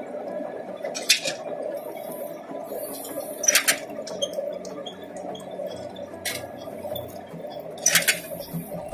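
Brick-making machine running with a steady hum, with four sharp metallic clinks at uneven intervals.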